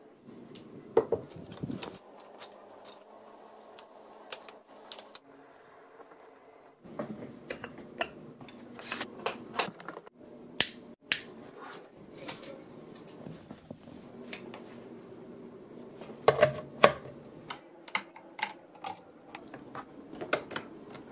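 A series of sharp clicks and handling knocks from electronic gear being switched on and set up, among them a plug pushed into a power strip, over a faint steady hum. The clicks come in clusters, loudest about halfway through and again about three-quarters through.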